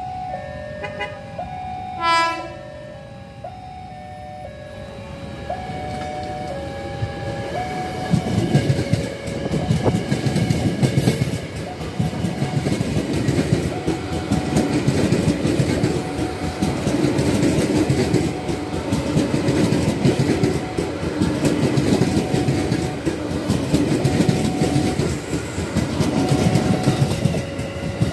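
Level-crossing warning alarm sounding two alternating tones, with a short horn toot about two seconds in. From about eight seconds an electric commuter train passes close by: wheels clattering over the rail joints under a steady hum, with the crossing alarm still faintly audible beneath.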